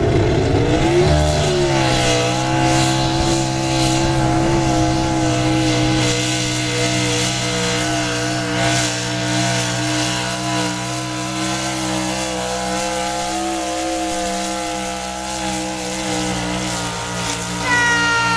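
Modified pulling truck's engine revving up as it launches, then held at high revs for the rest of the pull as it drags a weight transfer sled down the dirt track.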